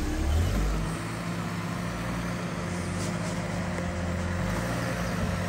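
Suzuki Jimny's engine running at low, steady revs as the small 4x4 crawls slowly over a rough dirt track.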